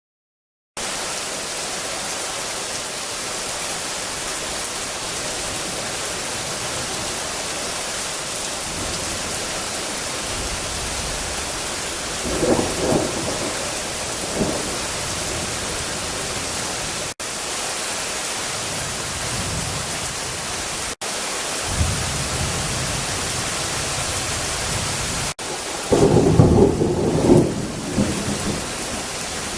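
Heavy rain pouring steadily in a thunderstorm, with rumbles of thunder about halfway through and a louder thunderclap rumbling near the end.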